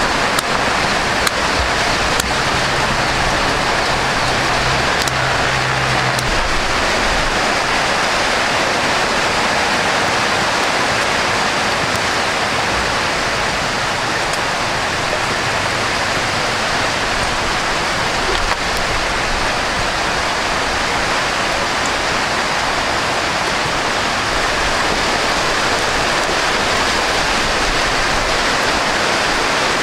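Steady, even rush of water noise, loud and unchanging throughout, like heavy rain or running water.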